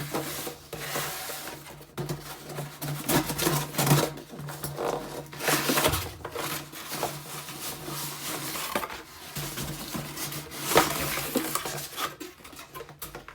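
A cardboard box and the plastic-wrapped packaging inside it being handled and opened: irregular rustling, crinkling and clattering knocks, over a faint steady low hum.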